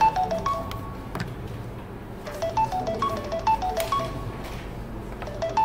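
Music: a short melody of quick stepping notes repeating about every three seconds over a drum beat.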